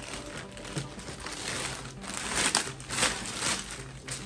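Plastic poly mailer bag crinkling and rustling as hands handle and pull it open, louder in the second half.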